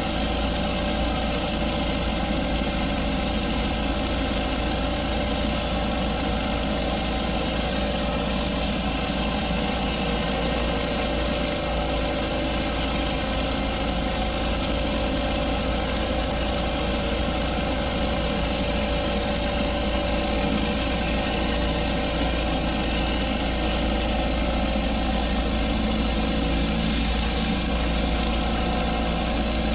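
Pressure washer's engine running steadily at constant speed.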